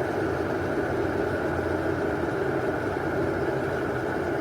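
Water boiling in an AZEUS 1.8 L glass electric kettle: a steady, even bubbling rumble at or near the boil.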